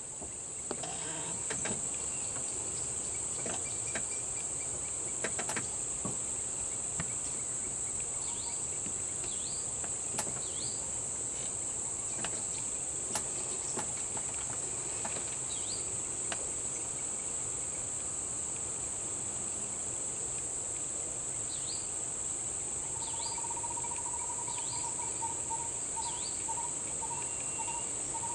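Steady, high-pitched insect chorus, with birds giving short falling chirps now and then. Near the end comes a quick run of repeated notes.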